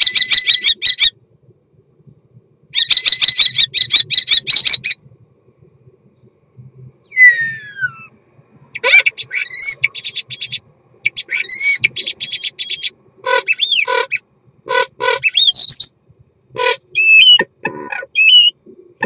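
European starling singing its mating song close up inside a wooden nest box. It opens with two long buzzy rattles, gives a sliding whistle, then runs through a string of clicking rattles, whistles and quick chattering phrases with short gaps between them.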